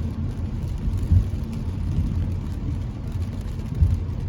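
Road noise inside a moving car in the rain: a steady low rumble of engine and tyres on a wet road, with two brief low thumps, about a second in and near the end.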